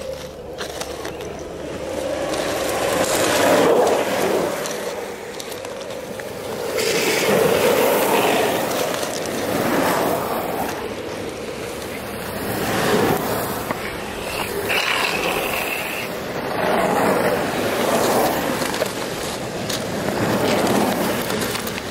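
Longboard wheels rolling fast over asphalt, a gritty rolling hiss that swells and fades several times as downhill skaters pass.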